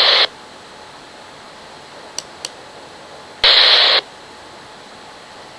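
Police scanner speaker between transmissions: a burst of radio static cuts off just after the start, leaving a low hiss. Two faint ticks come about two seconds in, then a half-second burst of static with no voice in it about three and a half seconds in.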